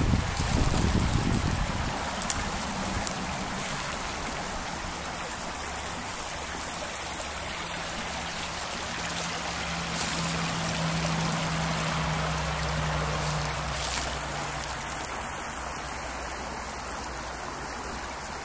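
Brook water trickling and splashing over rocks, a steady rushing hiss. A faint low hum runs underneath for most of it, and a low rumble is heard in the first two seconds.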